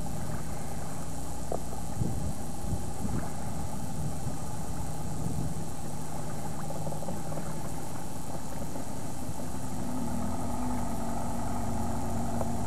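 Homemade pontoon dive boat's motor running steadily at low speed as the boat is brought in to the beach; a steady low hum that grows slightly fuller near the end.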